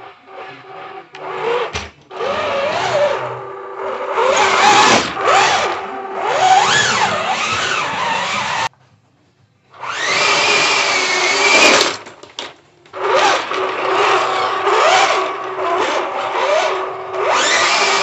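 Electric drive motors of an SG1203 'Ripsaw' RC tank whining as it drives around, the pitch rising and falling with the throttle. The sound cuts out suddenly for about a second just before halfway, then starts again.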